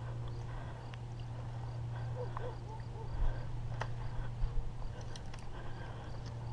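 Faint clicks and taps from handling a bent fishing rod and baitcasting reel while playing a hooked fish, over a steady low hum, with faint cricket chirping at first.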